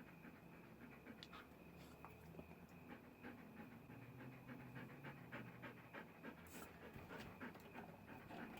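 Faint, quick, even panting.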